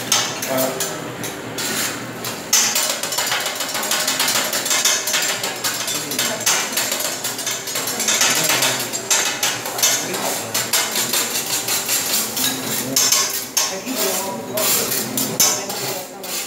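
Metal spatula scraping and chopping fried rice on a steel teppanyaki griddle: a fast, uneven run of clacks and scrapes.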